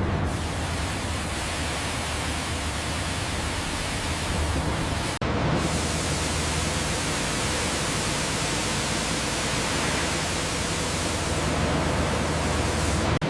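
Steady, dense hiss-like industrial machinery noise with a low hum underneath, cutting out abruptly for an instant about five seconds in and again near the end.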